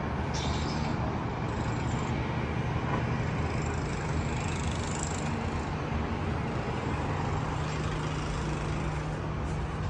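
Steady city traffic noise, an even hum with no distinct events.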